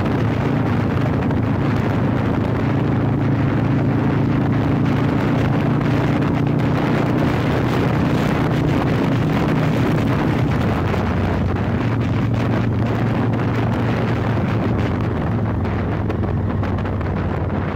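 1988 Yamaha Virago 1100's air-cooled V-twin running steadily while riding, its carburettors freshly synchronized, with wind buffeting the microphone. The engine note drops a little about ten seconds in.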